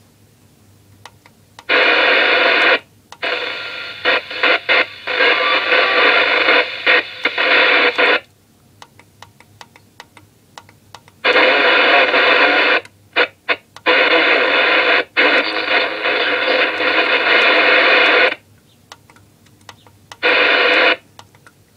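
Moonraker CB radio's speaker hissing with static and noise, cutting in and out abruptly as the channels are stepped through. A long stretch starts about two seconds in, a second long one comes midway, and a short burst comes near the end.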